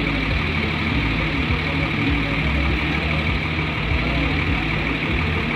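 A heavy vehicle's engine idling steadily at low speed, with a constant low hum.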